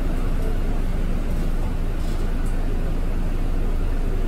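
Steady engine and road rumble of a city bus in motion, heard from inside the cabin.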